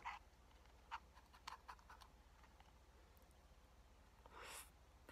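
Faint clicks and scrapes of a spoon digging into an Oreo McFlurry cup, several in the first two seconds, then a brief soft hiss of noise near the end as a spoonful is eaten.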